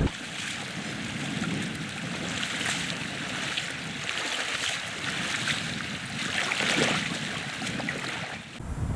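River water lapping and splashing: a steady hiss of many small splashes that swells now and then.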